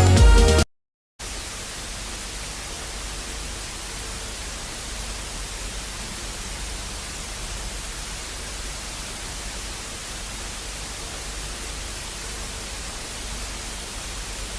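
Music cuts off, and after half a second of dead silence a steady static hiss starts and runs unchanged until it stops abruptly.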